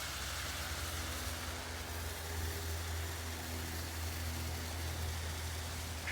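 Water bubbling and hissing in a goat-stomach pouch as hot rocks bring it to the boil, an even steady hiss over a steady low hum. A brief short chirp near the end.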